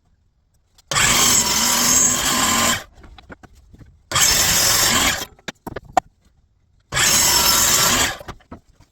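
Power miter saw running in three short bursts, each starting abruptly and lasting one to two seconds.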